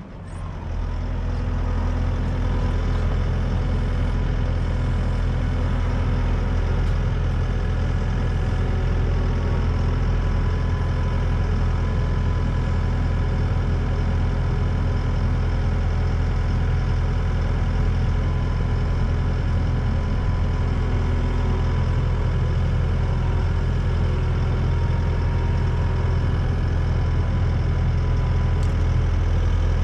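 An engine comes up in the first second or two and then runs steadily at idle.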